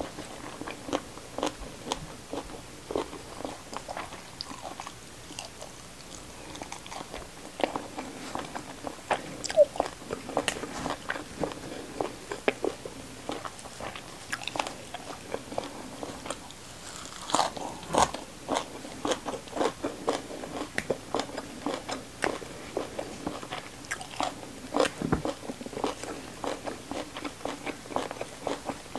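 Close-miked chewing and biting of a mouthful of fried fish, rice and raw greens such as kenikir leaves: irregular crisp crunches and wet mouth clicks, with louder bites about ten, eighteen and twenty-five seconds in.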